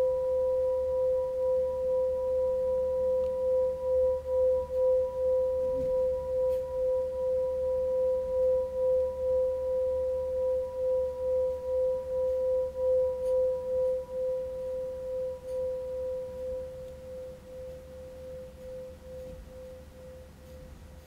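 A singing bowl ringing out after being struck: one steady tone with a higher overtone, throbbing in loudness as it slowly dies away, fading almost to nothing near the end.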